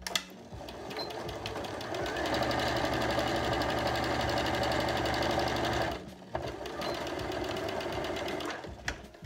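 Electric sewing machine stitching through layered fabric: it starts up, runs at full speed for a few seconds, pauses briefly about six seconds in, then runs again more quietly before stopping near the end.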